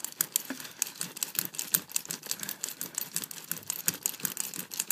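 Carpet seam roller's metal star wheels clicking and rattling in quick, irregular ticks as it is rolled over carpet, pressing a patch down into hot glue and bonding tape.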